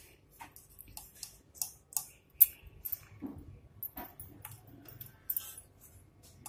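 Metal ladle clinking and scraping against the inside of an aluminium pressure cooker pot while scooping out cooked dal: a run of sharp, irregular clicks and taps, the loudest clink about two and a half seconds in.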